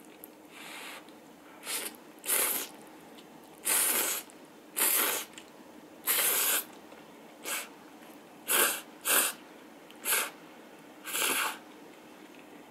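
Instant ramyeon noodles from rappokki being slurped: about ten short, loud slurps, one after another at irregular intervals of roughly half a second to a second and a half.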